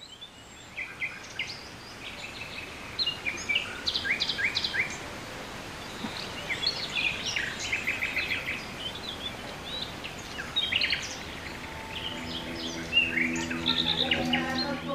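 Birds chirping and calling in short repeated phrases over a steady background hiss. About twelve seconds in, a low steady hum comes in under the birdsong.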